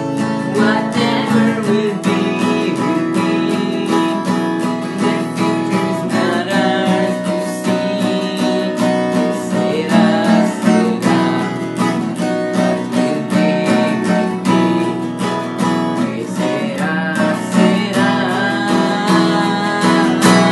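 Fender steel-string acoustic guitar strummed in a steady rhythm, with a young man singing over it.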